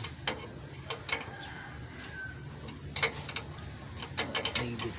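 Irregular metal clinks and ticks of steel spanners on the nuts of a truck's air brake chamber as it is tightened in place: a few early, a sharper cluster about three seconds in and more a little past four seconds.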